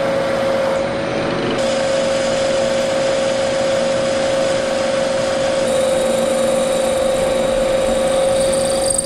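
Milling machine spindle running with a steady whine while a drill bit cuts holes in a metal bar. The sound changes abruptly twice, about one and a half and five and a half seconds in.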